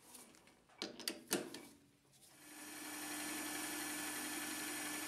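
A few sharp knocks as the lathe's three-jaw chuck is handled. Then, about two seconds in, the Optimum TU 2506V hobby metal lathe starts, spins up and runs steadily with a constant motor hum.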